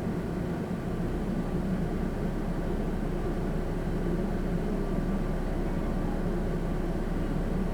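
Steady engine and tyre noise of a car driving on a road.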